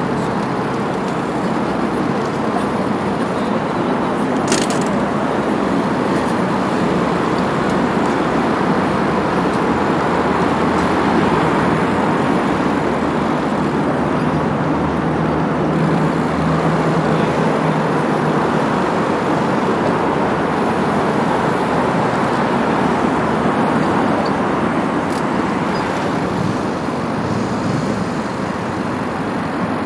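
Steady noise of riding, picked up by an action camera mounted on a moving bicycle crossing paving, with one sharp click about four and a half seconds in.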